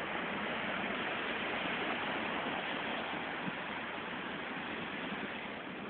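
Rough sea surf breaking on a stone seawall: a steady, even rush of waves with no distinct crashes.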